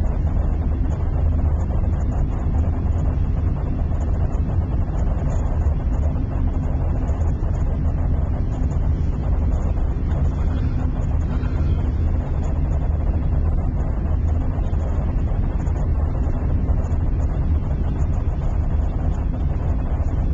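Steady low rumble of tyres on the road heard inside a car's cabin as the car freewheels, with no engine power.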